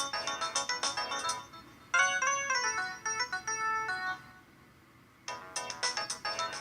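LG Fusic mobile phone ringtones playing: quick, bright synthesized melodies. One tune fades out about a second and a half in, another starts abruptly about two seconds in and stops near the four-second mark, and after a pause of about a second a third begins.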